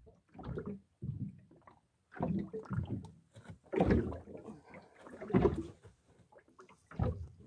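Irregular short bursts of rustling and knocking as a large zander is worked out of a mesh landing net and lifted on a boat's deck.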